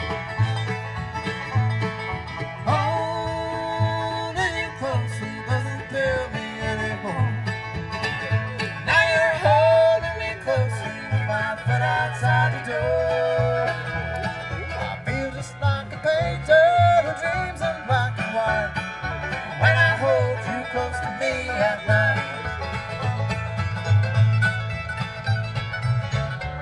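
A bluegrass band playing live through a Danley Sound Labs PA of SM80 tops and TH118xl subwoofers. Banjo and guitar play over a steady bass beat, with a lead melody sliding in pitch above.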